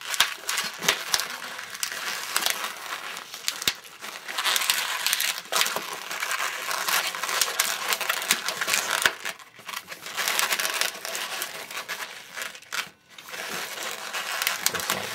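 Inflated 160 latex modelling balloon being twisted into bubbles and locked together in gloved hands: continuous rubbing, creaking and crackling of the stretched rubber, with short lulls about nine and a half and thirteen seconds in.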